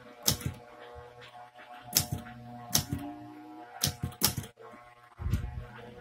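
Manual typewriter keys struck slowly one at a time: about six sharp clacks spread over several seconds. Near the end comes a lower rattle as the carriage is pushed back with the return lever.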